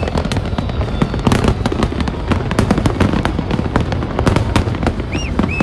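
Fireworks display: a dense, unbroken barrage of booms and crackling bursts, with a short high whistle near the end.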